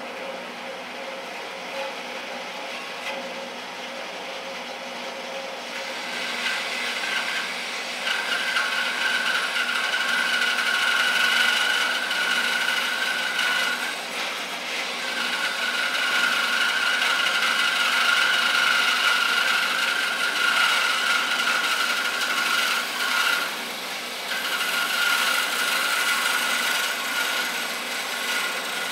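Bandsaw running, then cutting a wooden block from about six seconds in: a steady hum rises to a louder whining rasp as the blade skims a thin edge off the block to square it, easing off briefly twice.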